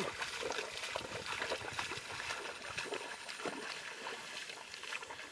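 Footsteps splashing and squelching through shallow muddy water, an uneven run of small wet splashes.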